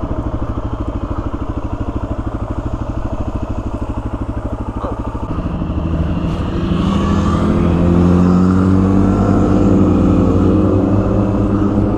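Suzuki DR-Z400S single-cylinder dual-sport motorcycle engine chugging at low revs, then revving up about five seconds in and pulling steadily at higher revs as the bike accelerates.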